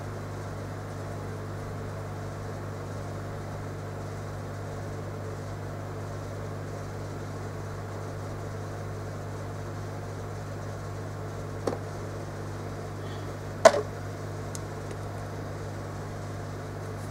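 Steady low hum and fan-like hiss of running electronics-bench equipment, with two short sharp clicks about two seconds apart near the end, the second louder.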